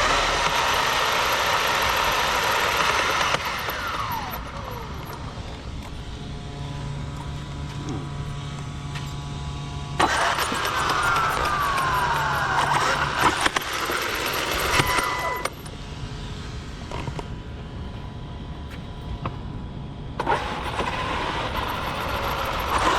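Large electric RC monster truck driving in three bursts, its motor and drivetrain whining and dropping in pitch as it slows, with quieter spells between. The driver suspects a dog bone (drive shaft) has popped out.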